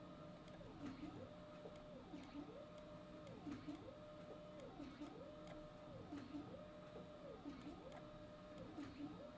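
Faint background hum that rises and falls in pitch in a steady cycle about once a second, with scattered soft clicks.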